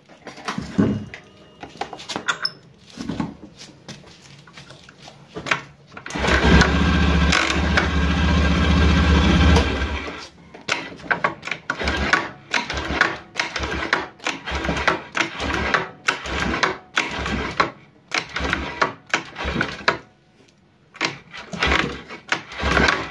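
Kick-start lever of a Honda automatic scooter kicked down over and over, each stroke a short mechanical rasp as the engine is cranked, at about two kicks a second. About six seconds in, the engine runs steadily for around four seconds. It is a test of the freshly greased kick-start that had failed to spring back up.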